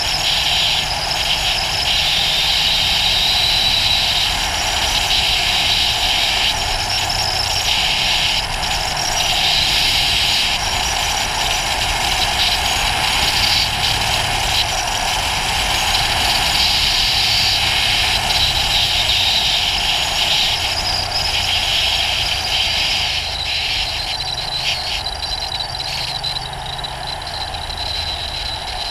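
Ducati GT1000's air-cooled L-twin engine running while the motorcycle is ridden, under a steady, loud rush of wind and road noise.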